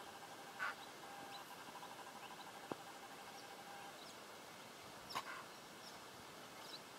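Quiet open-air ambience: a faint steady hiss with two short animal calls, one about half a second in and one about five seconds in.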